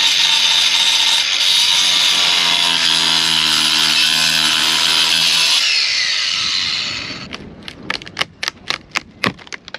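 Small angle grinder running against the old wooden hull planking, its motor whine falling away as it spins down about six seconds in. Then a quick run of sharp cracks as the plank is prised loose by hand.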